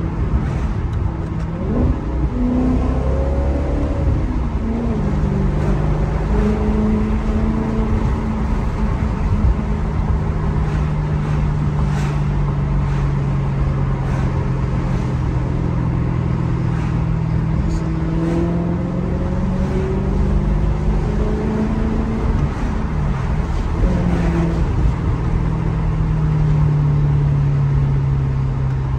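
Maserati GranTurismo's V8 engine and exhaust while driving. It holds a steady note for long stretches and climbs in pitch a few times, with sudden steps in pitch typical of gear changes.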